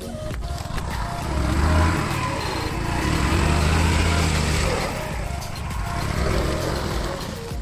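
Motor scooter engine revving under load as the scooter is ridden through deep mud, swelling twice, loudest about two seconds in and again around four seconds in.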